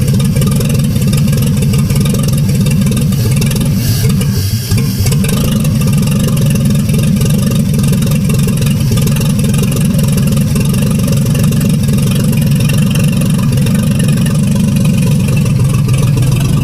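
1948 Chevrolet truck's straight-six engine running steadily on its freshly rebuilt carburetor, with a brief stumble in level about four and a half seconds in.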